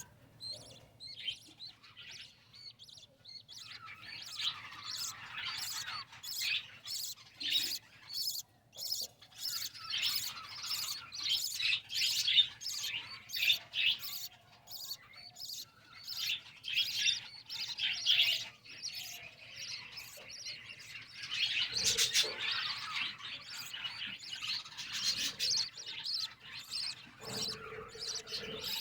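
A colony of small cage birds, budgerigars among them, chirping and chattering continuously in rapid, overlapping calls. The calls are sparse for the first few seconds, then thicken into a busy chatter.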